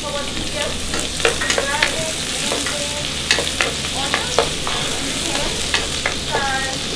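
Chopped garlic frying in hot oil in a saucepan, sizzling steadily while a plastic spoon stirs it and scrapes the bottom of the pan in many short strokes. The garlic is being sautéed until it turns golden.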